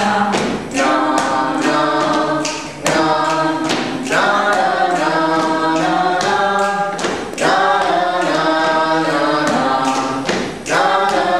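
A small group singing a cappella while keeping rhythm with body percussion: hand claps and slaps on the chest and body, sharp hits running through the held sung notes.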